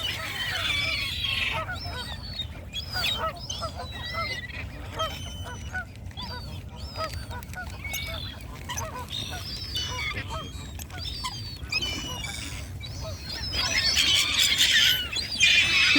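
A flock of waterbirds, geese among them, calling and honking over one another as they crowd in for scattered seed. The calling swells near the end.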